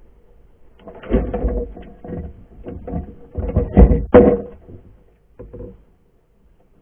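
Irregular knocks and thumps heard underwater through the camera housing as a seal bumps around the wire crab trap, loudest about four seconds in and fading out after about six seconds.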